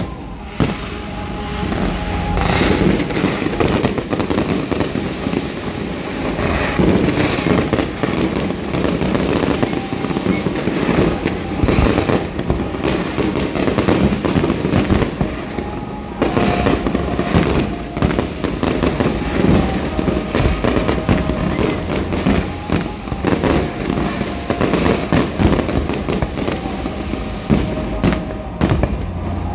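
Large fireworks display: a dense, unbroken barrage of bangs and crackling shell bursts going off in quick succession.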